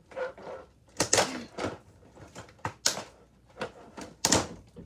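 Plastic and cardboard doll packaging being handled and pulled apart: an irregular run of sharp clicks and rustles, loudest about a second in and near the end.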